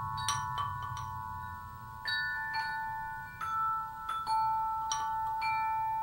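Background music of bell-like struck notes, chimes or a glockenspiel, each note ringing on and overlapping the next as new ones sound irregularly about once or twice a second.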